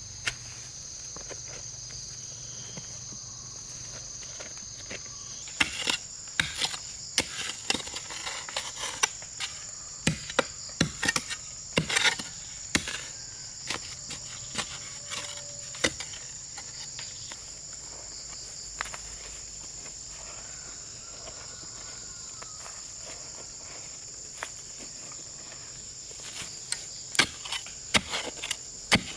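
Steady high drone of a rainforest insect chorus, with clusters of sharp knocks and taps on wood or bamboo from about five seconds in to about sixteen seconds, and again near the end.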